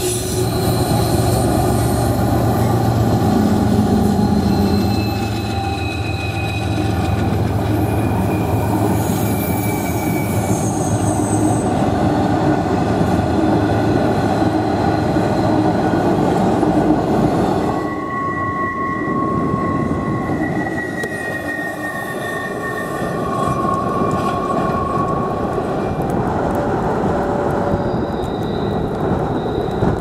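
Norfolk Southern freight train passing: its diesel locomotives run with a low steady drone in the first few seconds, then double-stack intermodal cars rumble by steadily. High, thin wheel squeals come and go over the rumble and are strongest a little past the middle.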